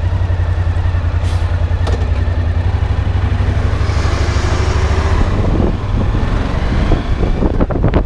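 Motorcycle engine idling with a steady low throb, then pulling away from a standstill in the second half. A short hiss sounds about four seconds in, and music with drum hits comes in near the end.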